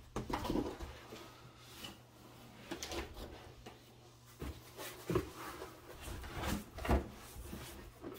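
Handling noise as a 3D printer's base and glass bed are lifted out of foam packing in a cardboard box: scattered knocks, scrapes and rustling, with a few sharper knocks in the second half, over a faint steady low hum.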